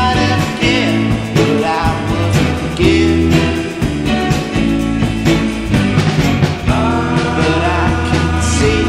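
A rock song with singing, guitar and drums with a steady beat.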